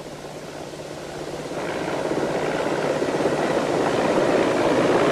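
Helicopter engine and rotor noise heard from inside the cabin, swelling from about a second and a half in and growing steadily louder, over a faint steady low hum.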